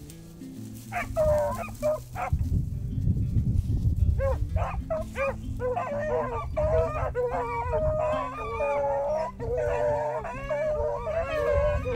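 A pack of beagles baying on a rabbit's trail: a few short yelps about a second in, building from about four seconds into continuous overlapping howls and yelps, which tell the hunter where the rabbit is running. Background music plays underneath.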